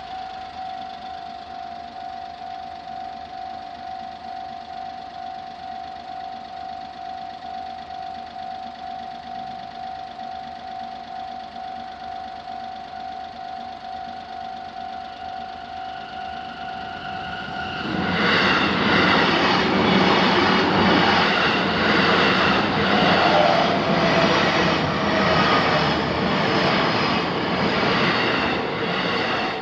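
Japanese railroad crossing's electronic alarm bell ringing in a steady, fast-repeating tone. About 18 seconds in, a JR Saikyo Line train passes over the crossing, much louder, its wheels clattering rhythmically over the rail joints and drowning out the bell.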